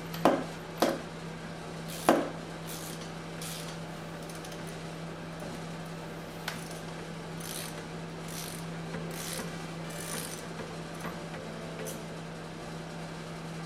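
Socket wrench working the top cap of a motorcycle fork leg loose: three sharp metallic clicks in the first two seconds, then faint, intermittent scraping and rubbing as the cap is turned and the leg is handled.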